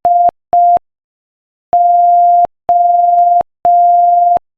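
Morse code at 5 words per minute, sent as a steady single-pitch beep keyed on and off. Two short dits near the start close out the letter D, and after a pause of about a second come three long dahs, the letter O.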